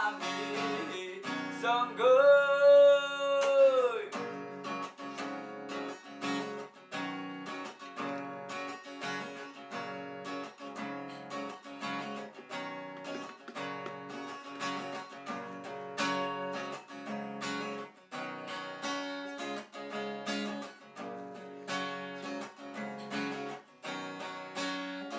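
Acoustic guitar strummed in a steady rhythm, carrying on alone as an instrumental passage. A single sung note is held for about two seconds near the start, then the guitar plays on by itself.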